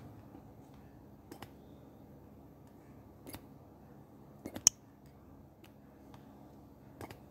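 A few short, sharp taps of a fingertip on a phone's touchscreen over faint room hiss, the loudest a quick cluster of clicks a little past halfway.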